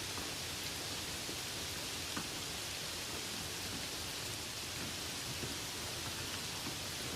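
Light rain falling steadily on meadow grass: an even hiss with scattered drop ticks, one a little louder about two seconds in.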